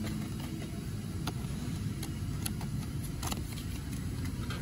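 Steady low background rumble with a few scattered light clicks and taps from handling at the engine, as a business card used as a feeler gauge is slid out of the gap between the ignition coil and the flywheel.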